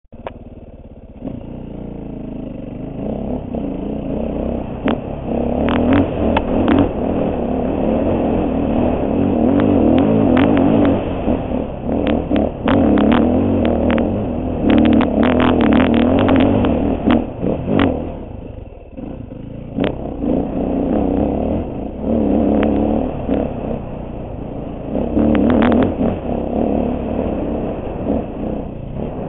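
Dirt bike engine revving up and down under load while riding a rough off-road trail, with many sharp knocks and clatter from the bike over the rough ground.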